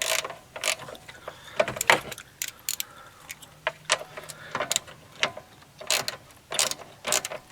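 Irregular sharp clicks and knocks of hand work under the hood: plastic radiator-shroud and metal parts being handled, fitted and tapped, perhaps with a tool.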